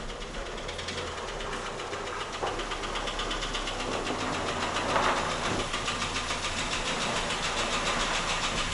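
Toyota Rush's 3SZ-VE four-cylinder engine running with a fast, even metallic knock, piston slap from pistons rocking in their bores.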